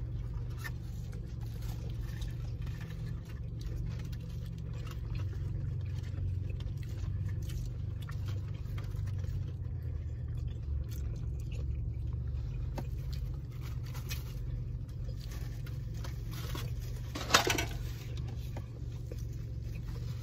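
Eating sounds, a person chewing a sandwich with small wet mouth noises and light clicks, over a steady low hum in a car's cabin. A single sharp click or knock near the end is the loudest sound.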